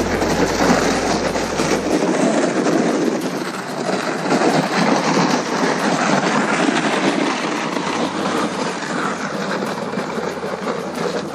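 Footsteps crunching on wet, crusted spring snow and a loaded plastic sled scraping along over it: a continuous rough scraping noise.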